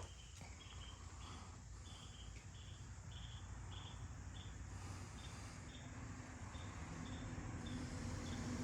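An insect chirping in a steady rhythm, short high chirps about two a second, growing fainter in the second half. A low rumble builds near the end.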